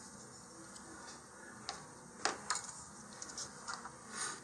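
A few soft, sharp clicks and taps from handling a hobby knife and a small paper cut-out and laying them down on a cutting mat, the loudest tap about two seconds in.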